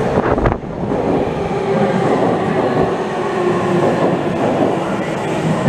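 Subway train on the Tokyo Metro Fukutoshin Line running into an underground station platform: a steady rumble of wheels on rail.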